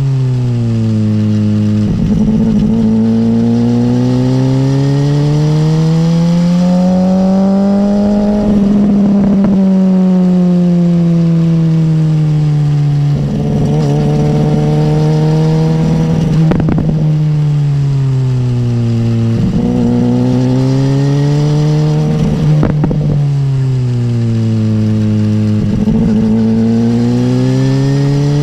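BMW S1000R's inline-four engine pulling and easing off through a run of bends. Its note climbs steadily for several seconds under throttle, then drops away, over and over.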